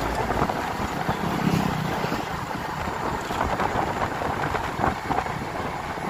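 Wind buffeting the microphone over the running and road noise of a moving vehicle, a constant rushing with flickering gusts.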